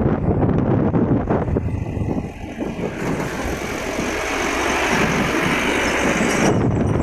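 Low rumble of road and wind noise from a moving vehicle. A rushing hiss builds from about three seconds in and cuts off sharply near the end as a pickup truck passes close alongside.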